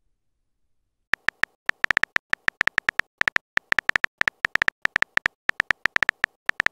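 Smartphone on-screen keyboard key-press clicks as a text message is typed: a quick, uneven run of short, sharp clicks, about seven a second, starting about a second in.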